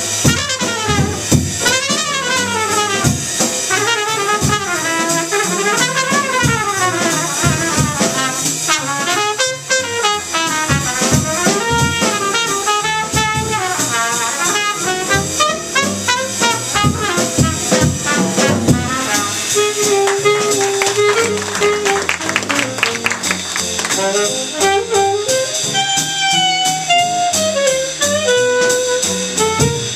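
Small jazz combo of piano, upright bass and drums backing a trumpet solo of fast, rising and falling runs. About two-thirds of the way through, a saxophone takes over the lead with longer, held notes.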